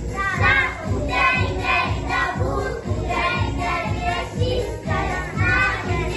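A group of young children singing a song in unison over backing music with a steady beat.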